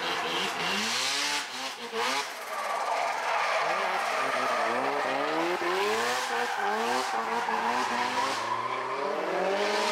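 Mazda FD RX-7 drifting: its engine revs rise and fall again and again under throttle, with tyre squeal, and the revs dip briefly about one and a half seconds in.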